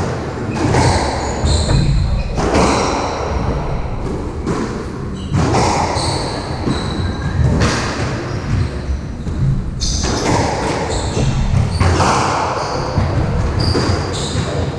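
Squash rally: the ball cracks off racquets and the walls every couple of seconds, echoing in the enclosed court, with short squeaks of court shoes on the wooden floor between shots.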